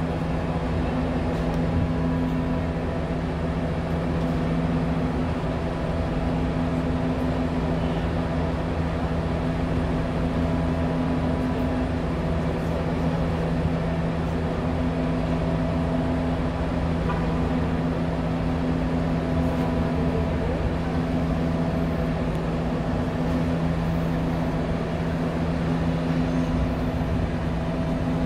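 Steady machinery drone: a constant deep hum with a couple of steady low tones, unchanging throughout.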